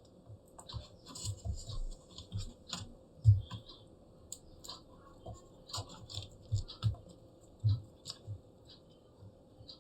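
Small irregular clicks, taps and scratches of hands handling a laptop hard disk and its connector while reconnecting it inside the open laptop.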